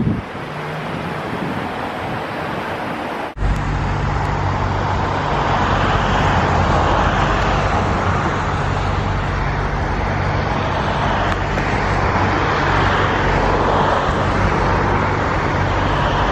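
Steady road traffic noise of cars going by, with a low engine hum. About three seconds in, the sound cuts abruptly to a louder, steadier stretch of traffic.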